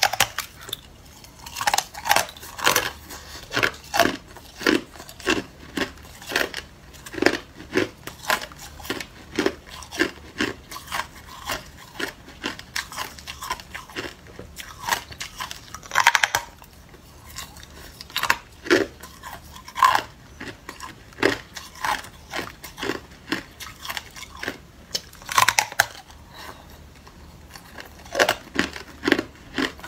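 A person biting into a block of clear hard ice and chewing the pieces: a steady run of sharp cracks and crunches, with louder snapping bites about halfway through and again a few seconds before the end.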